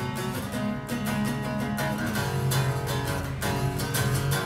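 Cutaway acoustic guitar being played, strummed chords with picked notes ringing on at a moderate pace.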